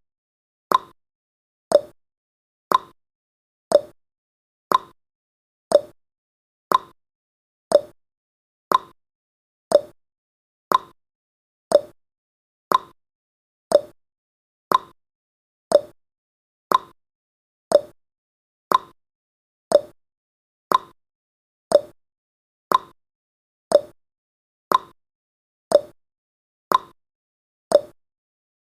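Clock-ticking sound effect of a countdown timer: sharp ticks one a second, alternating between a higher and a lower tick in a steady tick-tock.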